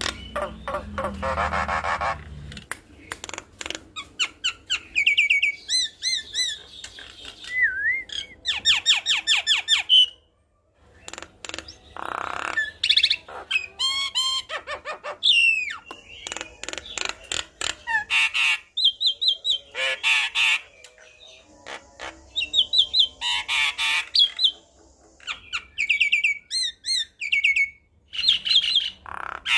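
Javan myna singing vigorously in a varied string of calls: harsh squawks, rapid clicking rattles and short whistled, gliding notes, broken by a brief pause about ten seconds in.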